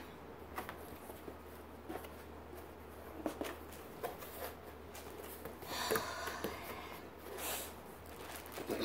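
Faint rustling and handling of a cardboard shipping box and the plastic-wrapped items inside as the flaps are opened, with scattered light clicks and two louder rustles in the second half.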